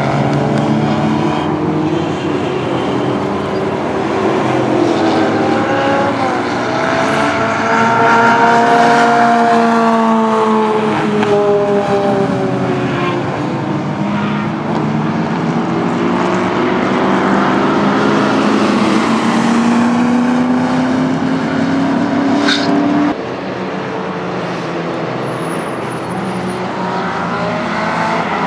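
Race cars at speed on a road circuit, among them a C6 Corvette Z06's 7.0-litre LS7 V8 with a track cam. The engine notes climb and fall as the cars accelerate, shift and pass by. The sound drops abruptly about 23 seconds in.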